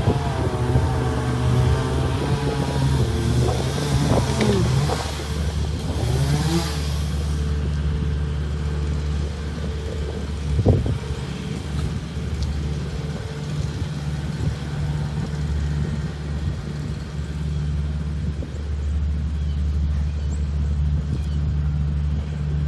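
A car engine running steadily with a low hum. There is a single sharp knock about ten seconds in.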